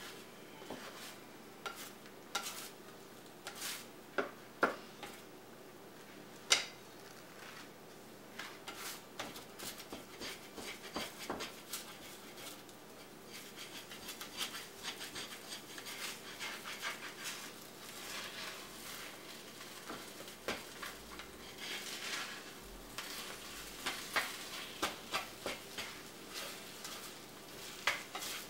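A plastic slotted spatula scraping and tapping around a skillet as scrambled eggs are stirred, over a faint sizzle of the eggs cooking. The scrapes come irregularly and grow busier near the end.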